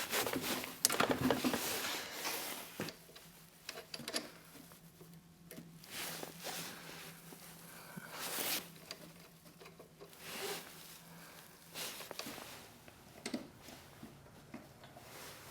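Intermittent handling noises: short rustles, scrapes and clicks, as of small parts and tools being handled, over a faint steady hum.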